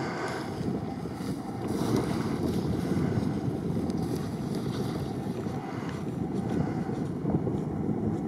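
Off-road vehicle's engine running as it drives the competition course, under a steady rumble of wind on the microphone.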